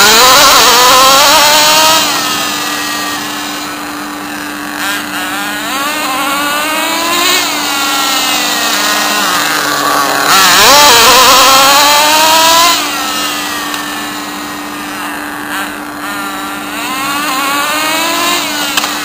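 Small nitro RC car engine running on petrol, its pitch rising and falling as it revs up and down. It is loudest as the car passes close by at the start and again about ten seconds in.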